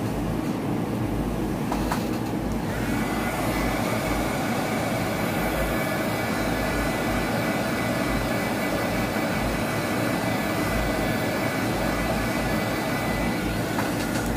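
Handheld electric heat gun clicked on about two seconds in, its fan whine rising quickly to a steady pitch and blowing steadily, then clicked off near the end. It is drying a fresh coat of gold paint on a small wooden plaque.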